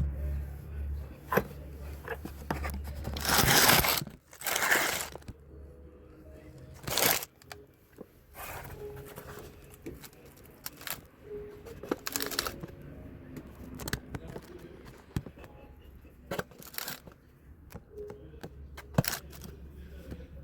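Hands-on work sounds: intermittent scraping, rustling and sharp clicks, with two loud rushes of noise about 3 to 5 seconds in and shorter ones later.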